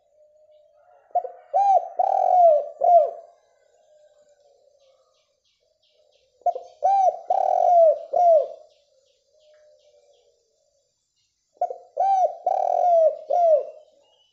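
Spotted dove (derkuku) cooing: three loud phrases of several arching coo notes, about five seconds apart, with faint soft coos in between.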